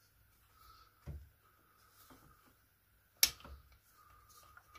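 Small handling noises while the screws holding an RC car's exhaust are undone: a soft knock about a second in and a single sharp click a little past three seconds, under a faint steady high hum.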